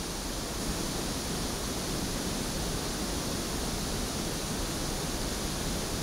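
Steady pink-noise test signal, a constant even hiss, used to measure a Shure Beta 58 microphone's frequency response on a spectrum analyser.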